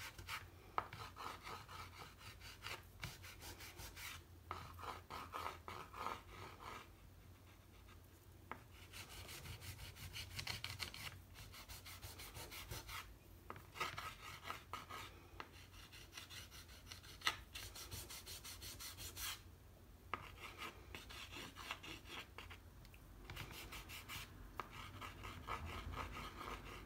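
Pastel scraping over rough watercolour paper in quick repeated strokes. It comes in bursts of a few seconds with short pauses between them.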